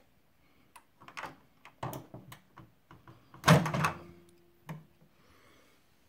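Severin MW 7890 microwave oven's door being pulled open: a few light clicks and knocks, then a loud clunk about three and a half seconds in as the latch lets go, with a short metallic ring after it.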